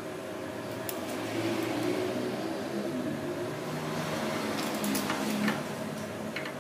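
Steady low hum of a running motor, with a few light metallic clicks from hand tools on the drill-press cutter and piston, heaviest a second or so before the end.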